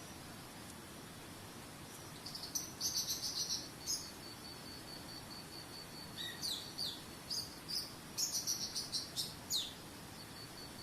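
Songbird singing in two bursts of rapid high chirps and quick downward-slurred whistles. Between the phrases an insect keeps up a steady, high, pulsing trill, over a faint even hiss of running water.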